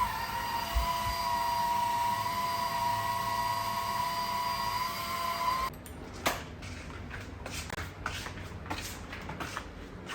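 Lydsto H4 vacuum cleaner's motor running with a steady high-pitched whine, switched off abruptly a little under six seconds in. Several light plastic clicks and knocks follow.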